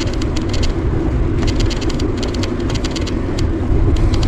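Wind rushing over a bicycle-mounted microphone with tyre noise, on a bicycle riding along a highway shoulder. Clusters of fast, light clicking come and go over it.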